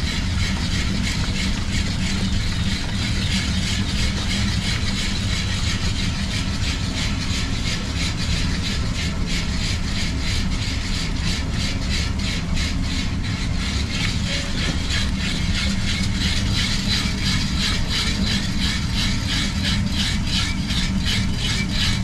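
Cou cou (coarse cornmeal and okra) being stirred hard in a pot: a quick, regular scraping rhythm that grows stronger about halfway through, over a steady low hum.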